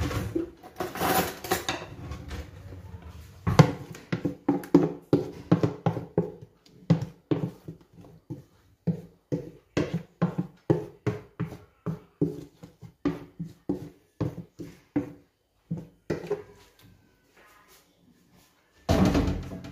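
Marinated chicken and vegetables sliding out of a plastic bowl onto a metal oven tray, followed by a long run of quick wet knocks and scrapes, two or three a second, as the last of the mixture and marinade is scraped and shaken out of the bowl. A single louder clatter near the end.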